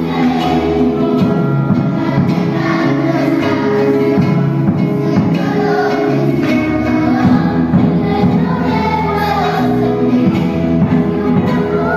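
Children's choir singing a song together, with a woman's voice singing along through a microphone, over instrumental accompaniment.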